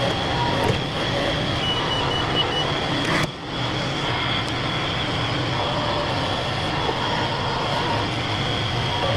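Front loader's engine running steadily while it works, with a short run of high warning beeps about two seconds in.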